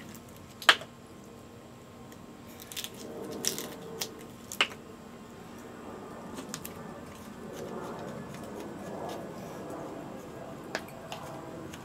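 A plastic spice-rub bottle being opened and handled: a sharp click about a second in as the cap comes off, a few lighter clicks a few seconds later, then soft rustling and scraping as the rub is shaken and worked out with a knife.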